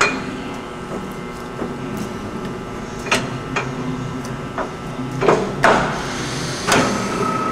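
LeBlond Regal 15C gear-head engine lathe running at its lowest spindle speed, about 30 RPM: a steady gear hum from the headstock. A sharp click as a control lever is thrown at the start, then several sharp metallic knocks, the loudest a little past the middle.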